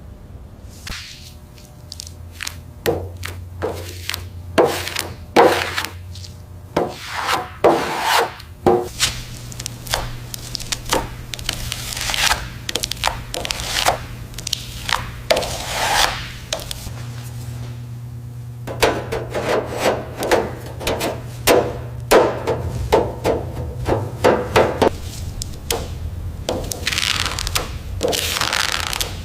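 Hand-tool scraping and rubbing on a hard surface in repeated, irregular strokes, about one or two a second, over a low steady hum.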